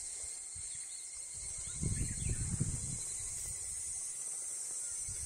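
Higurashi (evening cicadas) calling in a steady, high-pitched chorus, with a low rumble coming in about two seconds in.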